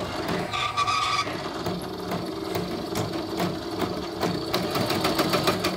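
YOKO portable computerized embroidery machine starting up and stitching, with a steady motor hum under a rapid, even clatter of needle strokes. A brief high tone sounds during its first second.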